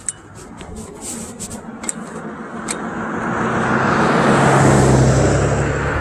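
A road vehicle approaching and passing close by, its tyre and engine noise swelling to loudest about five seconds in, with a low steady engine hum beneath. A few sharp clicks come in the first three seconds.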